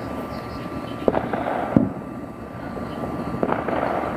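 Fireworks going off: a few sharp bangs, about a second in, near two seconds and about three and a half seconds in, over a steady hiss.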